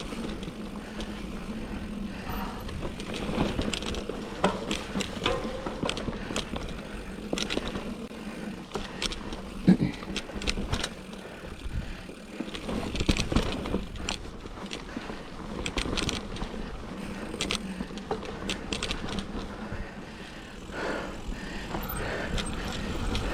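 2007 Cannondale Rush mountain bike ridden over rough dirt trail: tyre noise with the chain and frame rattling, and frequent clicks and knocks over bumps, one sharper knock about ten seconds in.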